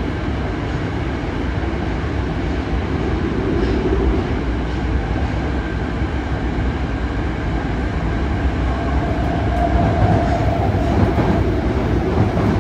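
Yokohama Municipal Subway Blue Line 3000R-type train with Mitsubishi IGBT-VVVF drive running through a tunnel, heard from inside the car: a steady rumble of wheels on rail. A faint higher tone comes in about two-thirds of the way through.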